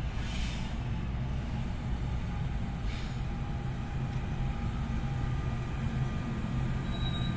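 Train rumbling steadily in the station, a low even hum with brief hisses of air about half a second and three seconds in.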